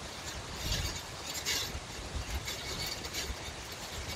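Steady wind noise, with a handful of irregular louder gusts that carry a low rumble and a rattling hiss.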